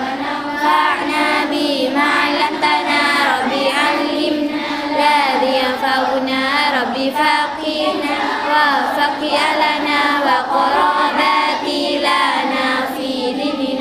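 A large group of girls chanting Arabic Islamic devotional verses in unison. Many voices waver together in a continuous sung recitation.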